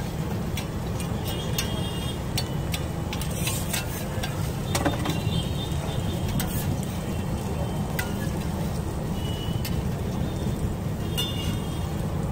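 Metal spatula scraping and clicking on a flat steel griddle, with butter sizzling and a steady low rumble underneath. The clicks come irregularly, with a few short metallic squeaks.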